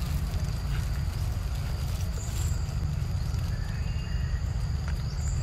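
Steady low rumble on the microphone under a faint, steady high-pitched whine.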